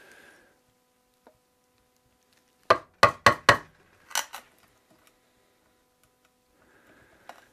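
Chisel struck in quick blows as it chops out an old glued-in tenon stub from a mortise in a wooden chair seat: four sharp knocks in a row a little under three seconds in, two more about a second later, and a faint one near the end.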